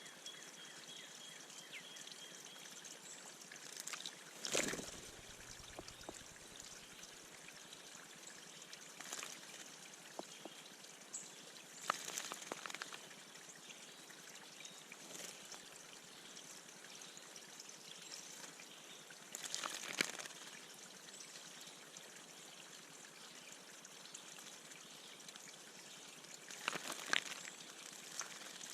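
Birds bathing in a bird bath: short bursts of wing-splashing in shallow water, about six in all, the biggest ones at about 4 seconds, 12 seconds, 20 seconds and just before the end.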